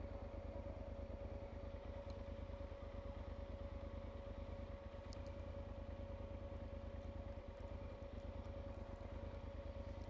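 A Yamaha Super Ténéré's parallel-twin engine idling steadily while the motorcycle stands still, a low even rumble with a faint steady hum over it.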